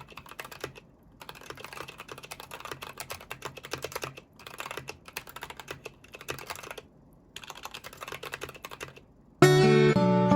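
Fast typing on a mechanical keyboard: dense runs of key clacks in several stretches broken by short pauses. About nine seconds in, louder acoustic guitar music starts.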